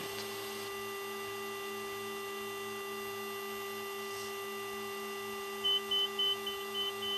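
Steady tonal hum of a Fairchild Metro's turboprop engines and propellers on final approach, with a run of about six short high beeps, roughly three a second, near the end.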